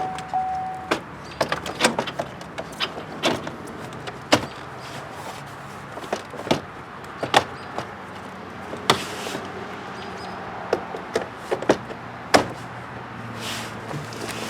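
Irregular clicks and knocks of a 2008 Chevy Equinox's door and its trim panel being handled and fitted, over a faint steady hum.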